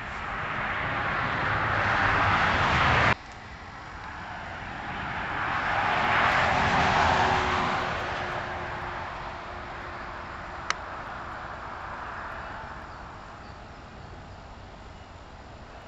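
Passing vehicles: a swell of traffic noise that builds and cuts off abruptly about three seconds in, then a second vehicle that swells up, is loudest around six to seven seconds and fades away. A single sharp click comes near eleven seconds.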